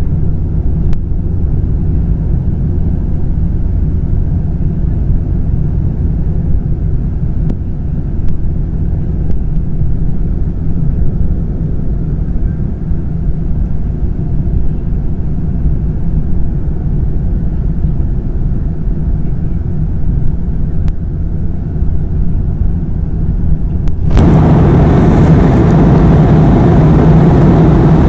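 Steady low drone inside the cabin of a Boeing 717 in flight: noise from its rear-mounted Rolls-Royce BR715 engines and the air rushing past. About 24 seconds in it suddenly becomes louder and brighter, with more hiss.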